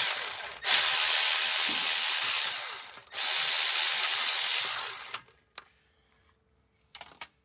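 Milwaukee cordless ratchet spinning out the long 8 mm bolts of an oil pump pickup in three runs, with short breaks between them. It stops about five seconds in, leaving only a few light clicks.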